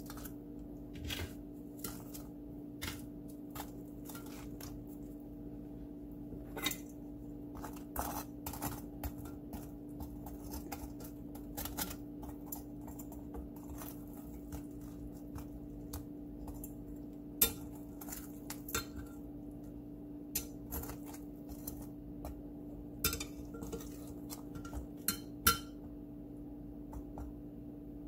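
Metal tongs tapping and clinking against a glass baking dish as syrup-soaked fried bread slices are moved about, in scattered light clicks with a couple of sharper clinks in the second half. A steady low hum runs underneath.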